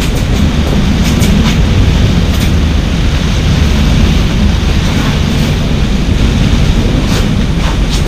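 Gale-force wind blowing hard against a catamaran's clear-vinyl cockpit enclosure together with the rush of the sea past the hulls: a loud, steady rumble with scattered sharp ticks.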